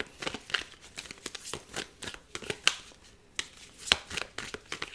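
Tarot deck being shuffled by hand: a stream of irregular soft card slaps and rustles, the sharpest about four seconds in.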